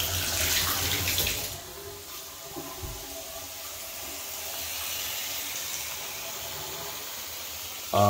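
Water running from a bathtub spout and splashing over a hand, then about a second and a half in, a quieter steady stream from a bathroom sink faucet running into the basin.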